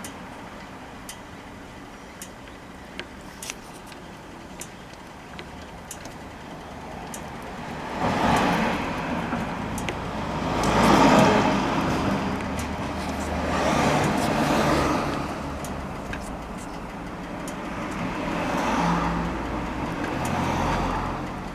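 Honda Little Cub's 49 cc four-stroke single running with the rear wheel turning, first quietly with light ticks, then swelling and easing off about four times. The uploader traces its occasional grinding noise to a broken transmission bearing that lets the countershaft wobble.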